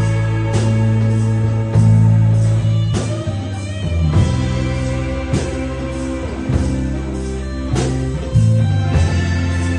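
Instrumental rock music led by guitar, with a strong bass line and regular drum hits.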